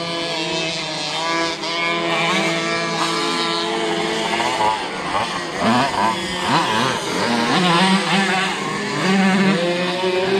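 Several tuned 50cc racing mopeds running together, their engines revving up and down at different pitches as they lap the track.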